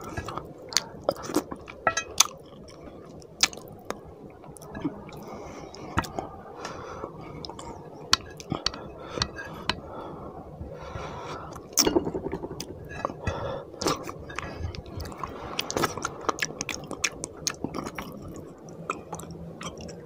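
Close-miked eating sounds of a person eating curry gravy with his fingers: wet chewing and smacking with many irregular sharp mouth clicks, while his fingers wipe the gravy off a plate.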